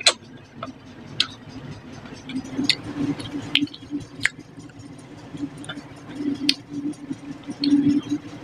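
Close-up eating sounds of a man chewing a handful of rice and tilapia fish curry: wet mouth clicks and lip smacks scattered about once a second, the loudest right at the start as the food goes in, over a soft chewing murmur.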